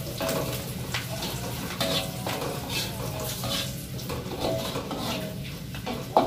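Metal spatula scraping and clinking against a wok while aromatics stir-fry, with a sizzle underneath. The clinks come at irregular moments, the sharpest one near the end.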